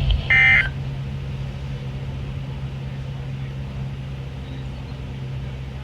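A single short burst of EAS digital data tone from a Midland WR120 weather radio about half a second in, the end-of-message code that closes the severe thunderstorm warning. After it, a steady low hum.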